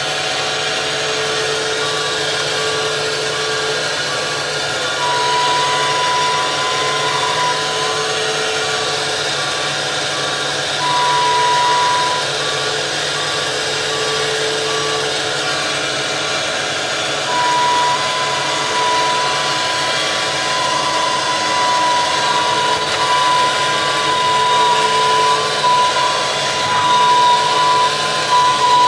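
Mantis 6010 crawler crane's engine running, heard from inside the operator's cab, with a steady beeping alarm throughout. A high whine comes and goes, then holds from a little past halfway.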